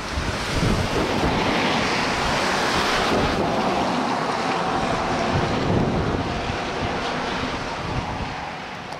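River in spate: fast, swollen floodwater rushing past, with wind buffeting the microphone.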